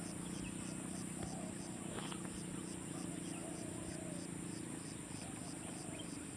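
Chorus of insects: a steady high-pitched buzz with a cricket-like chirping in a regular pulse about four to five times a second, over a steady low hum.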